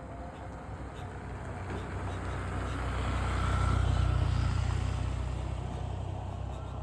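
A road vehicle driving past: a rumble and tyre noise that grow louder to a peak about four seconds in, then fade away.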